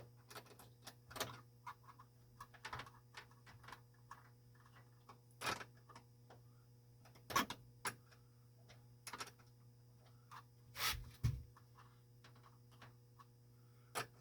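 Irregular small metallic clicks and taps of a wrench working a nut onto the bolt of a stainless steel refrigerator door hinge brace, with a few louder knocks among them.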